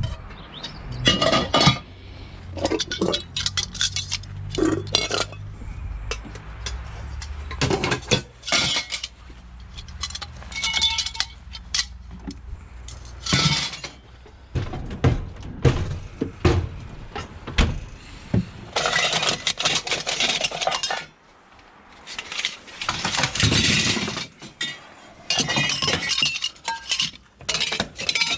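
Scrap metal clanking and clattering as pieces are handled, dropped and tossed, in many irregular knocks with a few longer stretches of rattling and scraping.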